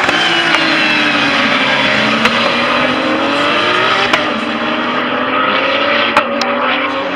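Several Porsche 911 GT3 Cup race cars' flat-six engines running past and away one after another at installation-lap pace. Their pitches glide up and down as they accelerate and lift, with a few short sharp cracks.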